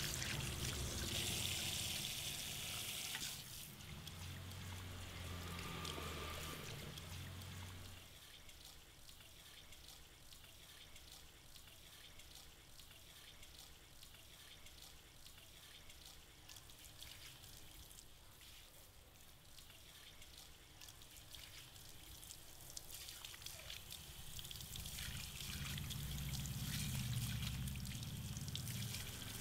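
Water from a handheld shower sprayer splashing and trickling into a salon shampoo basin as lathered hair is rinsed. It is louder at the start and again near the end, softer in between.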